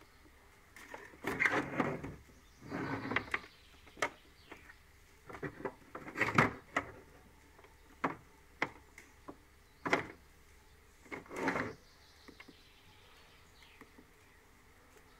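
Handling noise from a cordless inspection camera and its cable over a hard plastic carrying case: irregular rustles and scrapes with sharp clicks in between, dying away near the end.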